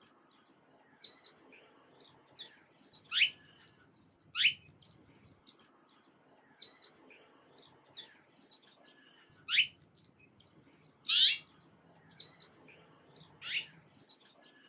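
Small birds chirping: five loud, quick chirps that each sweep down sharply in pitch, with softer short high chirps in between, in a pattern that seems to repeat about every six and a half seconds.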